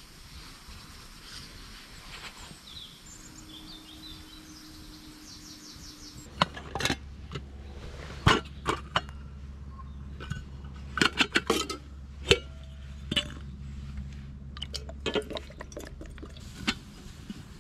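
Camp cookware clinking and knocking in a run of sharp, separate strikes, the loudest about 8 and 12 seconds in, over a steady low hum that starts about six seconds in.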